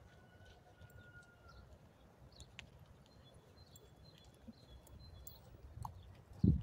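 Quiet outdoor ambience with a low rumble and a few faint, thin whistled bird calls, then a single dull thump near the end, the loudest sound here.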